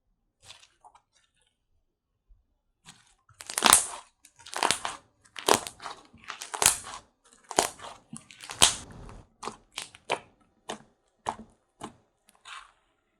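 Slime being pressed and squeezed by hand, giving crackly, crunchy pops about once a second. The pops are loudest in the middle and thin out into shorter, fainter clicks near the end.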